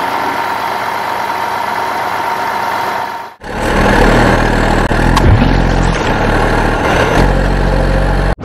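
Truck engine running, almost certainly a dubbed sound effect. It cuts out sharply about three and a half seconds in and comes back deeper and louder, with a single click partway through. It breaks off again at the end.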